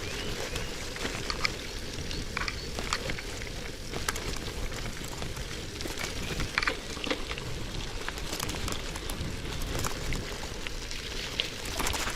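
Bicycle tyres rolling through wet mud and puddles on a dirt road, a steady hiss and crackle of wet ground and spray with scattered clicks over a constant low rumble of the ride.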